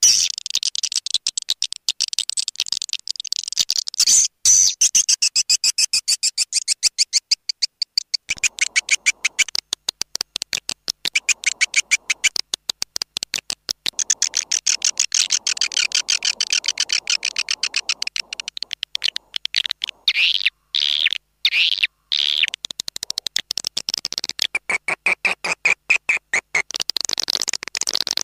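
Swiftlet lure call: a dense, continuous stream of rapid high twittering chirps of edible-nest swiftlets, played back to draw swiftlets into a nesting house. Near the end the calls drop briefly to a lower pitch.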